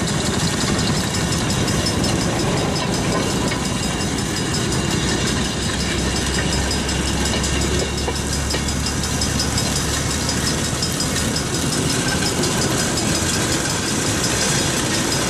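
Railway speeders, small track motorcars including a Fairmont, running their small engines with a steady fast putting as they roll past one after another.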